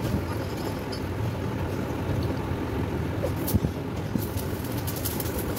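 Water splashing and a hand rubbing over the wet rubber of an inflated inner tube, with brief scratchy sounds that grow busier in the second half. A steady low rumble runs underneath.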